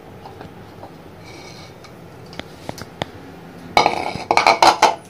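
Kitchen dishes and utensils clinking and clattering on a countertop: a few light clicks, then a loud, dense run of clatter about four seconds in that lasts about a second.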